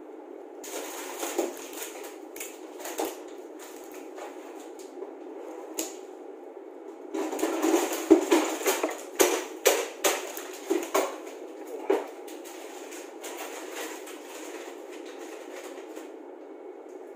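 Crab and shrimp shells being cracked and peeled by hand: scattered sharp crackles and snaps, a short cluster about a second in and a denser run from about seven to twelve seconds in, over a steady hum.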